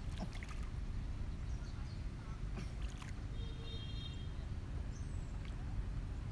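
Water sloshing and lapping around a person wading chest-deep in a pond, over a steady low rumble, with a few faint clicks.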